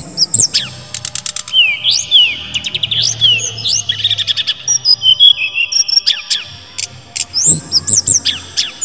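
Brown-chested jungle flycatcher singing a loud, fast, varied song. Its clear whistled notes sweep up and down, some are held on a steady pitch, and runs of rapid clicking notes are mixed in.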